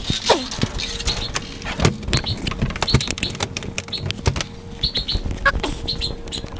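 Clicks, knocks and rustling from handling and moving about, with a short falling squeak near the start. Short high bird chirps come several times, and a faint steady hum runs underneath.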